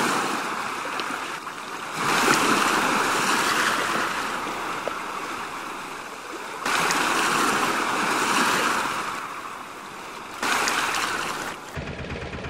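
Rushing noise of sea waves, swelling and fading in long surges, each starting abruptly about two, seven and ten seconds in. Near the end it gives way to a lower, steadier rumble.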